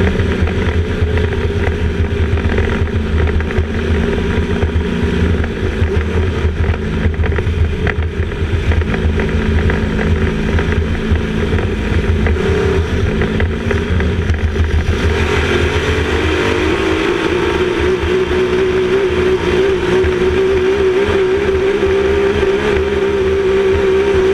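Grand Prix racing hydroplane's engine heard from inside its own cockpit, running hard at racing speed. About fifteen seconds in the pitch rises a little, then holds a steady high note with more hiss over it.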